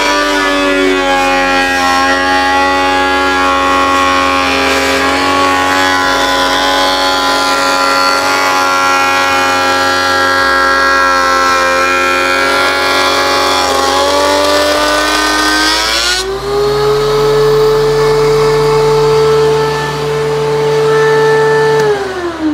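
DeWalt two-speed benchtop thickness planer running under load as a board feeds through and its blades cut it down, a loud, steady motor whine. About sixteen seconds in the board clears the cutterhead and the whine jumps higher as the motor runs free. Near the end the planer is switched off and the whine falls away as it spins down.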